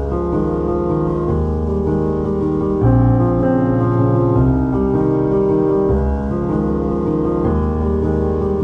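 Background music: piano playing slow sustained chords over a deep bass.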